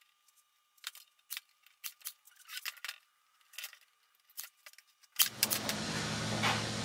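Scattered light, sharp clicks and taps, about ten in five seconds. About five seconds in, a steady low machine hum with hiss starts up.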